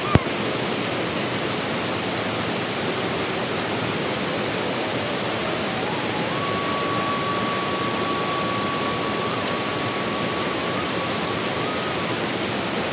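Steady roar of a waterfall pouring into a rocky pool, loud and unbroken.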